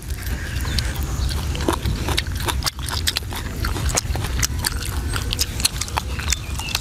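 Close-miked eating sounds: wet clicks and smacks of chewing and picking at grilled fish, several sharp little ticks a second, over a steady low rumble.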